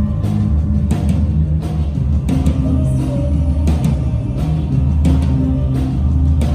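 Live band music: deep, sustained bass notes under sharp drum hits that come about once or twice a second.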